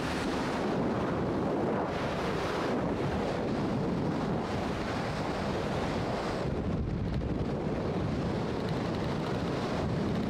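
Wind rushing over the microphone as it is held out of a moving car's open window, a steady roar of air with the car's road rumble beneath. The hiss dulls briefly about six and a half seconds in.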